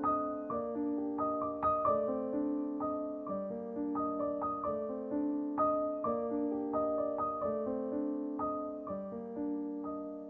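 Slow background piano music: single notes struck a couple of times a second over held chords, each note ringing on and fading.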